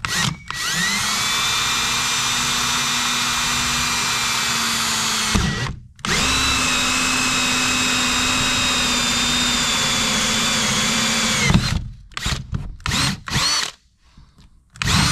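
Power drill boring a hole through the side wall of a polyethylene water tub. It makes two long steady runs of about five seconds each with a short pause between, the pitch rising as each run starts and falling as it stops, then several brief bursts near the end.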